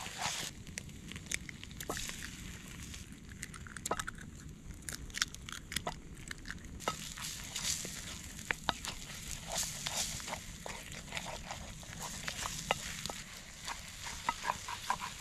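Bacon and eggs frying in a steel pan over a campfire: a steady sizzling hiss with frequent sharp pops. The hiss eases for the first several seconds and grows stronger again about halfway through.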